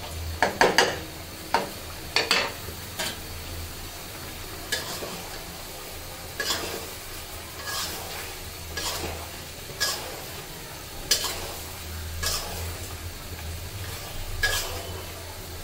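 Wooden spoon stirring and scraping polao rice in a hot nonstick pan, with a light sizzle: a quick run of strokes in the first few seconds, then occasional single scrapes and knocks.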